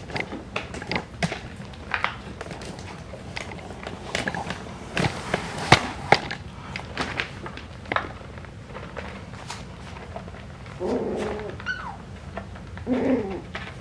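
Puppies scuffling about, making scattered small clicks and taps. Near the end come a few short puppy whines and high, thin squeaks that fall in pitch.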